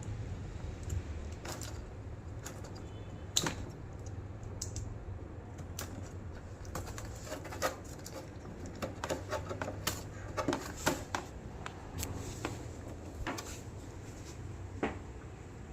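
Irregular light clicks and taps from handling small tools and parts, thickest in the middle stretch, over a low steady hum.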